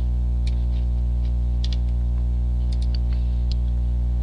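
Steady electrical mains hum with a stack of buzzing overtones. A few faint, scattered computer-mouse clicks sound through it as folders and a file are clicked in a file browser.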